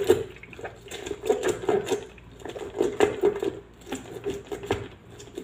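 A halved lemon being twisted and pressed by hand on a plastic citrus reamer: repeated squeaks and rubbing of rind on ridged plastic, in uneven strokes as the fruit is ground back and forth.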